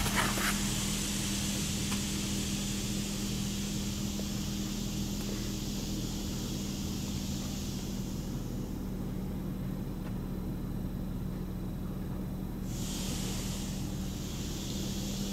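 Water jets of a Water Wizard touch-free automatic car wash spraying the minivan, heard from inside the cabin as a steady hiss over a low hum. The hiss thins out about eight seconds in and comes back suddenly near the end.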